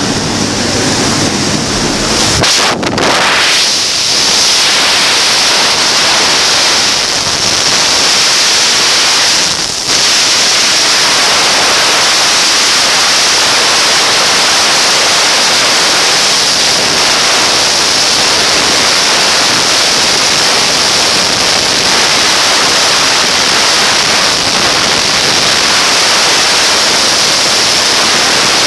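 Freefall wind rushing over a helmet-mounted camera's microphone: a loud, steady roar of noise. For the first two and a half seconds it is mixed with the deeper rumble of the jump plane at its open door, which cuts off as the skydivers exit.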